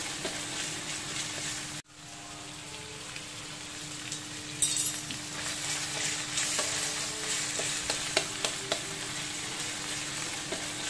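Minced beef, onions and blended chilli sizzling in a hot wok while it is stirred, with scattered clicks and scrapes of the utensil against the pan. A steady low hum runs underneath. The sound cuts out for a moment about two seconds in.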